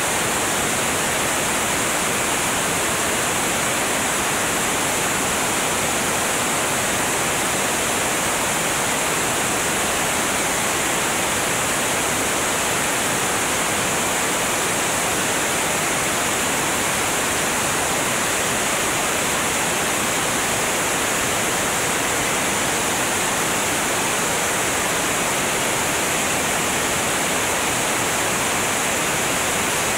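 Steady rushing airflow noise over an exterior camera on the wing of a light propeller aircraft in flight, even and unchanging, with no distinct engine note standing out.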